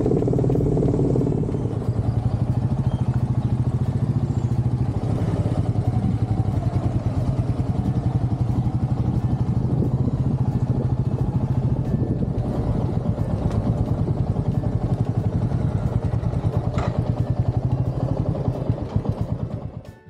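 Motorcycle engine running steadily while riding on the road, a low even drone that keeps up without a break.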